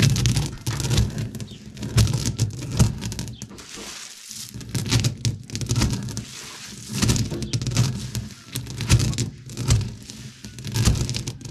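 A heavy round stone rocked back and forth by hand over acorns on a flat stone slab, crushing and cracking their shells: repeated low grinding thuds with crackling crunches, one stroke every second or so.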